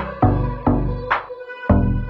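Electronic background music with bass notes and a drum beat.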